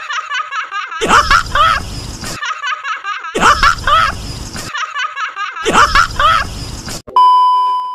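A man's hearty laughter from a film clip, the same laugh repeated three times in a loop. A steady electronic beep follows for about a second near the end.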